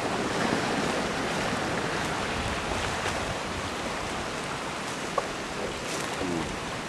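River in spring ice drift: a steady rush of high water carrying broken ice floes, with a few light ticks of ice about five to six seconds in.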